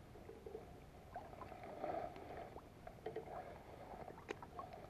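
Spinning reel being cranked in short bursts of whirring as a hooked largemouth bass is reeled in to the surface, with a few sharp clicks.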